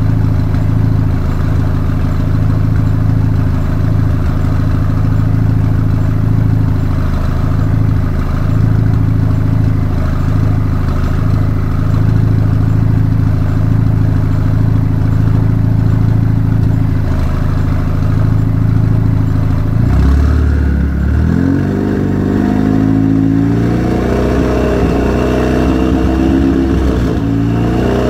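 Saturn Sky Redline's turbocharged 2.0-litre four-cylinder, breathing through a catless downpipe and a muffler-less Solo race cat-back exhaust, idling warm, steady and loud. About twenty seconds in, the revs climb over a couple of seconds and then hold steady at about 2000 rpm.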